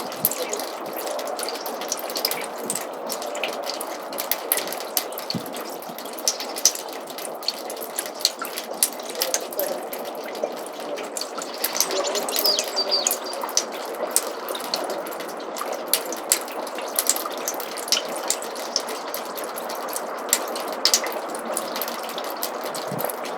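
Snowmelt water trickling and dripping in a roof gutter: a steady trickle with many irregular, sharp drips.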